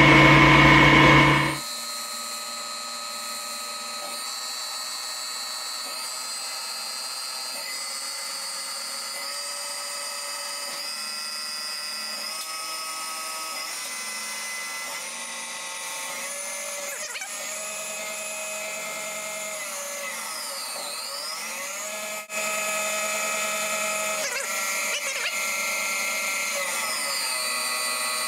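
CNC lathe running its automatic cutting cycle. Several steady motor whines from the spindle and axis drives shift and glide in pitch as the tool moves, one dipping and rising again about 20 seconds in. It starts louder with a deeper hum for the first second and a half, and a click comes about 22 seconds in, after which the machine runs louder.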